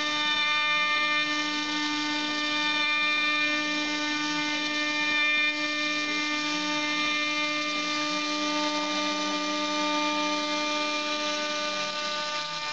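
CNC router running with a steady whine of many stacked tones as its spindle bit cuts grooves in plywood, with a lower wavering tone under it.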